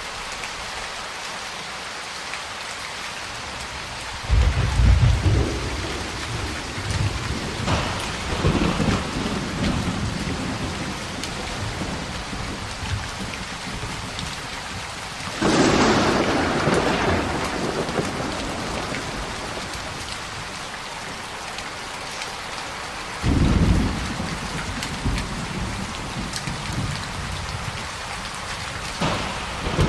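Steady heavy rain falling, with thunder rumbling in four rolls: about four seconds in, midway (the loudest and widest), about three quarters of the way in, and again near the end.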